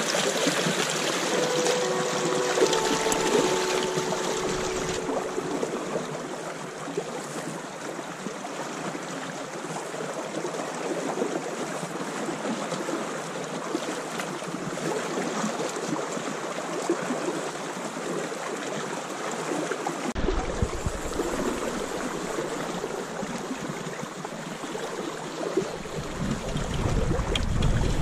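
River water rushing and lapping past a small inflatable raft, a steady wash of sound. From about twenty seconds in, wind rumbles on the microphone.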